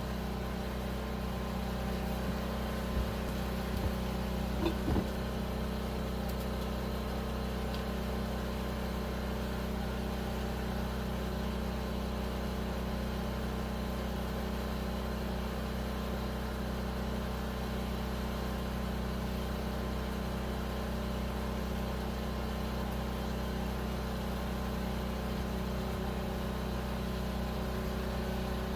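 Steady machine hum made of several fixed tones, with a few brief knocks and a short squeak about four to five seconds in.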